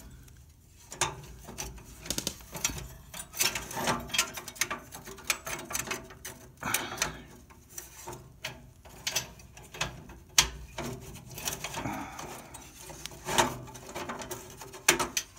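Catalytic combustor in its metal housing being jimmied up into place inside a Regency i1500 wood insert's steel firebox: irregular light metal clicks, taps and scrapes, with one sharper knock about ten seconds in.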